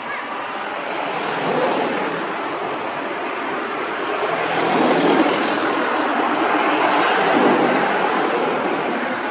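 Noise of a passing motor vehicle, swelling over several seconds and then fading.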